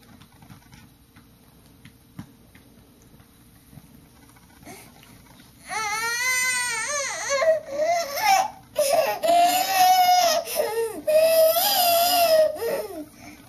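A baby's loud, high-pitched vocal noises. After a few quiet seconds, the baby lets out a series of long, wavering calls that rise and fall in pitch, in several bouts until near the end.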